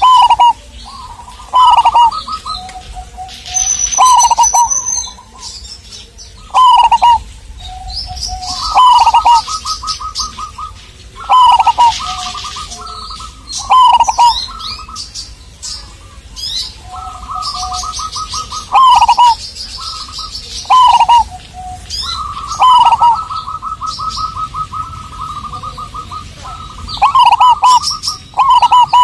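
Zebra dove (perkutut) cooing over and over: each phrase is a rapid rolling trill of short notes followed by short, loud coo notes, repeating every one to three seconds. Fainter high chirps of other small birds sound between the phrases.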